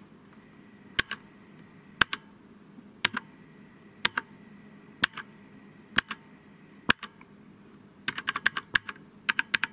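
Stock e元素 tenkeyless mechanical keyboard with its supplied brown switches, single keys pressed and bottomed out about once a second, then a quick run of keystrokes near the end. Bottoming out gives a high metallic ring, which the owner puts down to the switch springs echoing in the hollow case.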